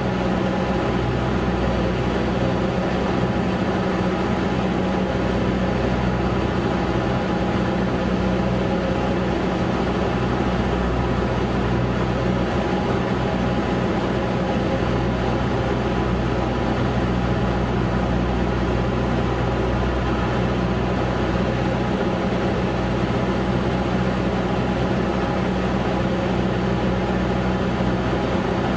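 Continental O-200 four-cylinder engine and propeller of a 1969 Cessna 150J droning steadily, heard inside the cockpit in flight.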